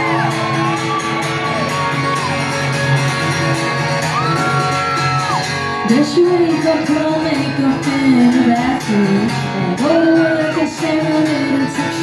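Live rock band playing in a club, with acoustic guitar, electric guitars, bass and drums. Shouts and whoops from the crowd ride over the instrumental first half, and a woman's lead vocal comes in about halfway, making it louder.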